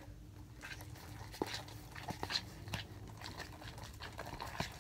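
Detergent-activated homemade slime being mixed and kneaded by hand in a plastic tub: scattered small wet squishes and sticky clicks.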